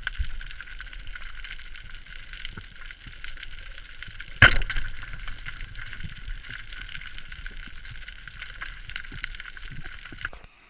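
Underwater ambience, a steady crackling hiss over a low rumble, broken once about four and a half seconds in by the sharp crack of a speargun firing its shaft. The sound cuts off shortly before the end.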